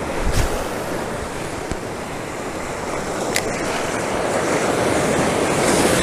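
Ocean surf breaking and washing around the wader, with wind buffeting the microphone; the wash grows louder toward the end.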